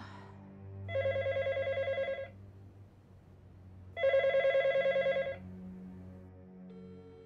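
Electronic telephone ring, trilling, sounding twice for about a second and a half each time, about three seconds apart, over soft background music.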